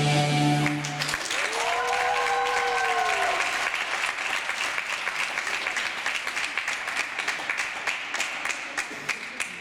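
Routine music stops about a second in, then audience applause with clapping, and one long cheering whoop that rises and falls early on in the clapping; the applause slowly dies down.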